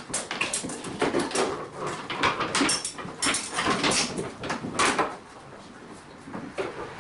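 Fiberglass cable rods being pushed through a gap under the floorboards, giving irregular scraping, rattling and knocking that eases off about five seconds in.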